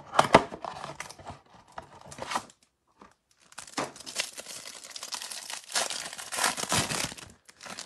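Packaging being torn open: the cardboard hanger box ripped open, then after a brief pause the plastic wrapper around a stack of trading cards crinkling and tearing for a few seconds as it is peeled off.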